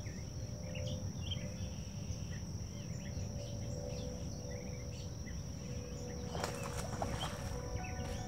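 Lakeside ambience: a steady high insect buzz, scattered bird chirps and a low rumble. About six and a half seconds in there is a short cluster of sharp clicks.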